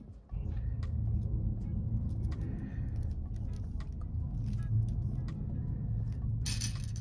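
A steady low rumble, like a motor vehicle running close by, starts abruptly a moment in and holds. Over it are scattered light clicks of plastic beads being handled on a thread, and a short rattling rustle near the end.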